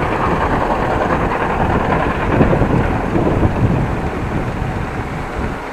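Wind buffeting an action camera's microphone on a moving bicycle: a loud, steady rushing rumble.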